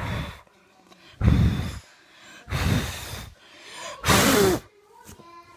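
Four loud breathy puffs close to the microphone, each about half a second long and roughly a second and a half apart. The last ends in a falling voiced sigh.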